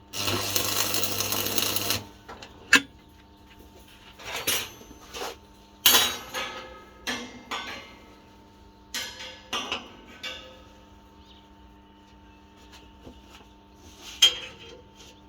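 A harsh buzzing noise from a workshop tool stops about two seconds in. Scattered clanks and knocks of steel pieces being handled and tapped follow, three of them sharp and loud, over a faint steady hum.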